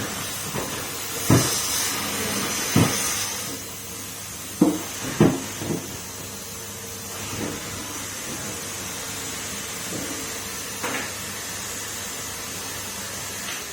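Numatic Henry canister vacuum cleaner running steadily, with a few sharp knocks as the nozzle and wand bump against things, most of them in the first half.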